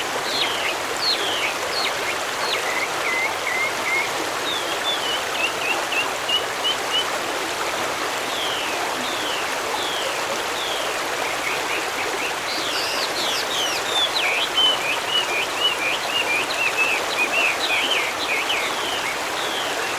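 A stream running steadily, with songbirds singing over it in quick chirps and trills, busiest at the start and again in the second half.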